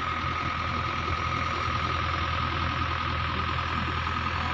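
Tata tipper truck's diesel engine running steadily while its hydraulic hoist tips a full load of soil, with a steady high whine over the low engine note.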